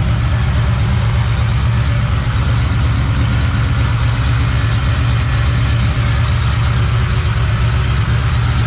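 Big V8 engine idling steadily with a deep, even rumble.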